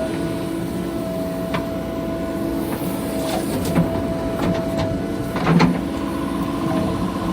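JCB 3DX backhoe loader's diesel engine running steadily under a steady high whine, with a few sharp metal clanks, the loudest about five and a half seconds in.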